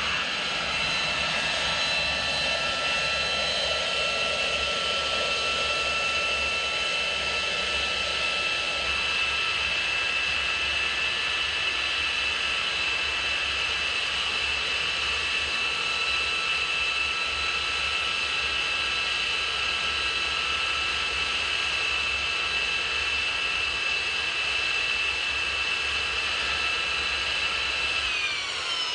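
Jet trainer's turbofan engine (L-39 Albatros) whining steadily at low power while taxiing in and stopping. Near the end the whine starts falling in pitch as the engine winds down.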